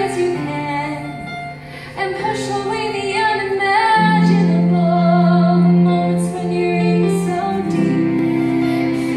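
A teenage girl singing a solo song with accompaniment: long held notes over a sustained low backing that swells about four seconds in.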